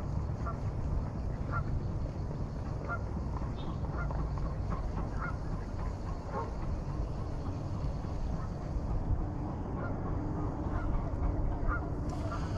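Geese honking, short calls repeated irregularly, over a steady low background rumble.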